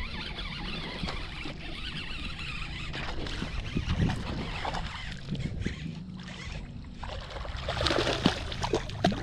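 A hooked fish thrashing and splashing at the water's surface as it is brought to the boat, with the loudest splashing near the end, over a steady low rumble.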